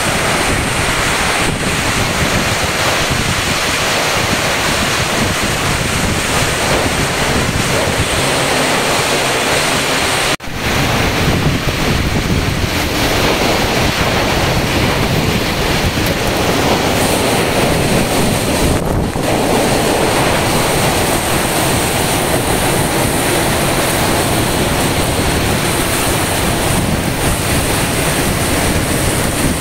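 Cyclone wind and heavy rain buffeting the phone's microphone: a loud, steady rushing noise, broken off briefly about ten seconds in.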